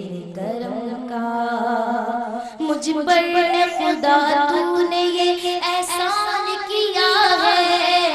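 A woman singing a naat, an Urdu devotional poem to God, with no clear words, drawing out long held notes with wavering ornaments. Her voice glides down at the start, then steps up and grows louder about two and a half seconds in.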